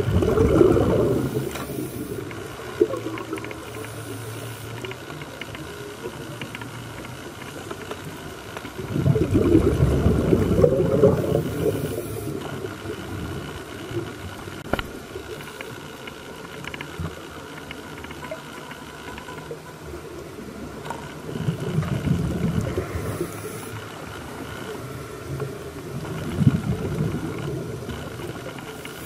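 Underwater sound: a steady hiss with four swells of rumbling bubbles, the sound of a scuba diver exhaling through a regulator.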